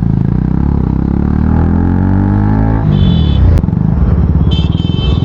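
KTM 250 Duke's single-cylinder engine running loud with its exhaust silencer removed, revs climbing steadily for nearly three seconds, then falling abruptly. A single sharp pop comes about a second after the drop.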